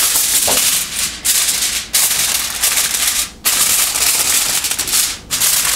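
Aluminium foil crinkling and rustling loudly as a sheet is spread over a glass baking dish and pressed down around its edges, in several long stretches broken by brief pauses.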